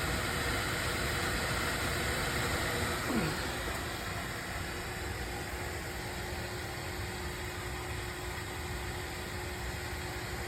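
Beckett oil burner's blower motor running steadily after a reset, a continuous whoosh with a faint hum, as the burner purges before the flame lights.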